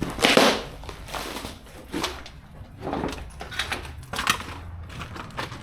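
Doosan 235 excavator pulling a locked security door off a building: a run of crunching, scraping and banging noises, the loudest just after the start, over the low steady hum of the excavator's engine.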